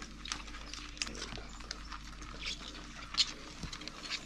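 Australian giant burrowing cockroach hissing when handled: about half a dozen short puffs of air, the loudest a little after three seconds in.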